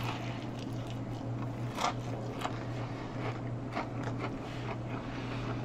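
A man biting and chewing a mouthful of fried chicken and sticky glazed donut, with scattered short wet mouth clicks and smacks. A steady low hum runs underneath.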